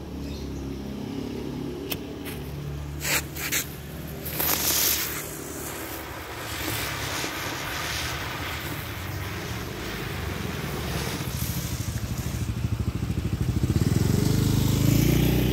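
Two sharp clicks, then a small ground firework catches about four and a half seconds in with a loud burst and fizzes with a steady hiss of sparks for several seconds. Near the end an engine hum grows louder.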